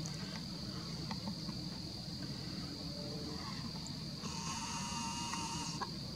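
Crickets trilling, a steady high-pitched trill. About four seconds in, a camera's zoom motor whirs for about a second and a half and stops with a click.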